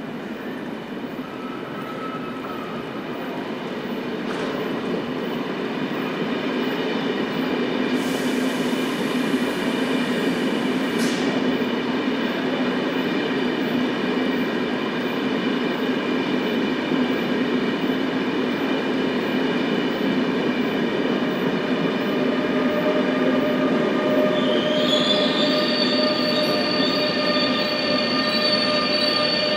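An ÖBB railjet electric train moves slowly through the station, its wheels squealing in steady tones over a running noise. The sound grows louder over the first eight seconds, with a brief hiss about eight to eleven seconds in.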